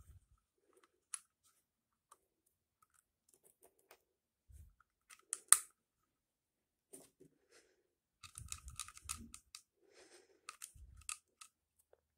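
Hands handling a Kydex holster and a small aluminium holster hanger while fitting its screws and posts: scattered clicks and taps of hard plastic and metal parts, one sharp click about halfway through, then a busy run of small clicks and dull knocks near the end.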